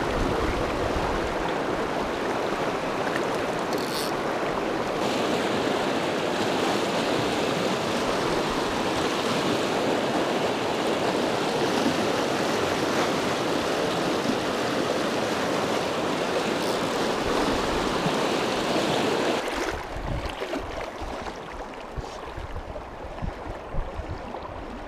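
River water rushing over rocks in a fast riffle, a steady, even rush. About twenty seconds in it drops to a quieter, gentler flow with low, uneven buffets of wind on the microphone.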